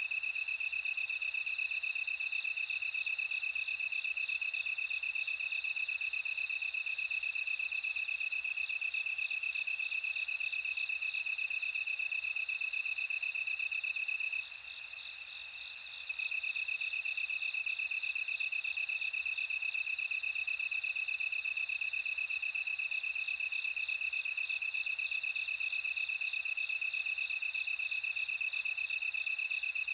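Several crickets singing together, including bell crickets: a steady pulsing trill that stops for about a second and a half near the middle, with shorter, higher-pitched chirps repeating over it.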